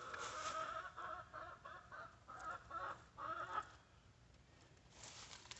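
Chickens clucking faintly in a run of short pitched calls over the first few seconds, then falling quiet.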